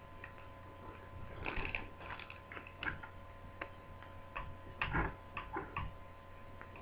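Irregular small clicks and taps of a screwdriver working the screws loose in a laptop's plastic base, over a faint steady hum.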